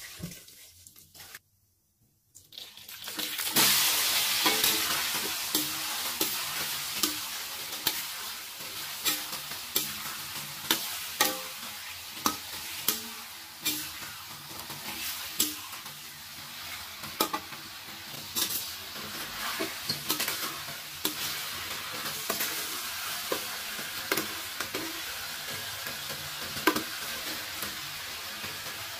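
Chicken pieces frying in hot oil in a wok, stirred with a metal spatula. After a brief quiet, a loud sizzle rises sharply about three seconds in and keeps going, with frequent sharp scrapes and taps of the spatula against the wok.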